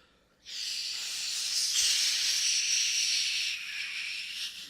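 A long, steady hiss lasting about four seconds, its tone shifting slightly a couple of times along the way.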